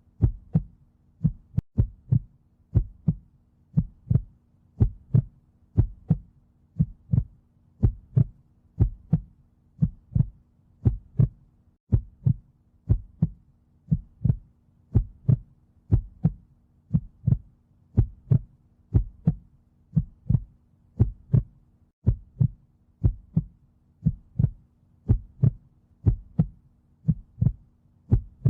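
Heartbeat sounds: a steady, even rhythm of low, paired lub-dub thuds, over a faint steady hum.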